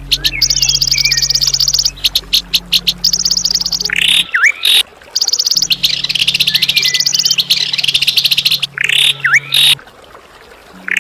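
Songbird calls used as a masteran tutor recording for white-rumped shamas: rapid, high buzzy trills repeated in bouts, broken by sharp swooping whistles that dip and rise. A low steady hum runs underneath and drops out twice.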